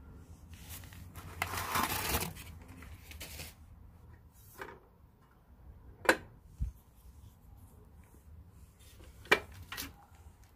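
Newspaper rustling, loudest about two seconds in, then a few sharp clicks and knocks as the metal body of a portable gas burner is handled and set down.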